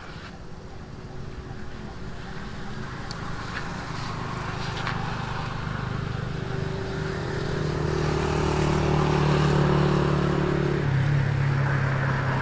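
A motor vehicle engine approaching and passing: a steady hum that grows louder over several seconds, then drops in pitch near the end as it goes by. A few faint clicks come a few seconds in.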